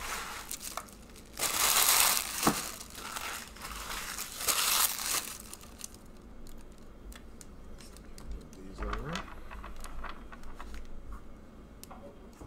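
Crinkly plastic trading-card pack wrappers being crumpled in two loud bursts a few seconds apart, followed by quieter rustle of cards being handled on the table.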